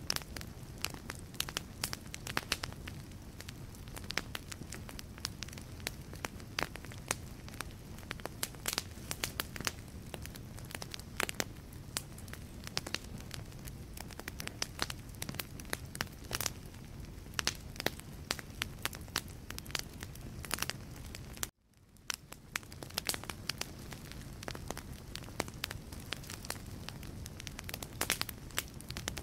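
Wood fire crackling in a fireplace: irregular sharp pops and snaps over a steady low rush of flames. About three-quarters of the way through, the sound cuts out suddenly and fades back in.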